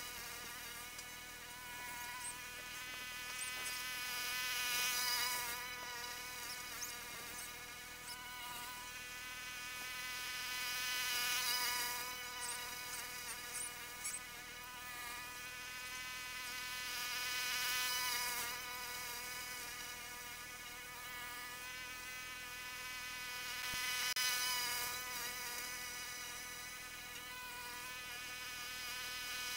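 Lawn mower motor heard in fast-forward, its running sound raised into a high, steady buzz. The buzz swells and fades about every six seconds as the mower moves nearer and farther on its passes.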